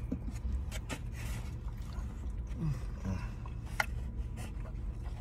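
Quiet eating sounds inside a car: small clicks and rustles of handling takeout food and chewing, with a brief low murmur, over a steady low rumble.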